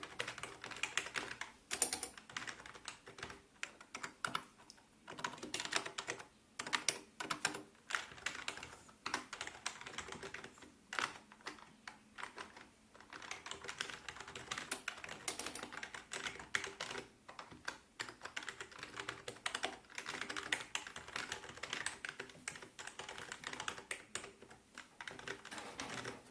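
Typing on a Qsenn SEM-DT35 keyboard: a fast, continuous run of key clicks with a few brief pauses.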